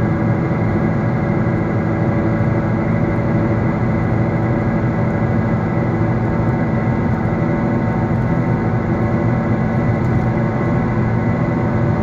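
Worn car wheel bearing howling steadily, heard inside the cabin at highway speed, a loud drone of steady pitch over the engine and tyre noise. It is the howling stage of a failing wheel bearing.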